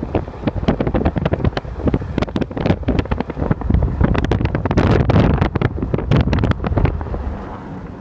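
Blizzard wind buffeting the microphone in rapid, heavy gusts, loudest around four to six seconds in, over the low rumble of a car driving.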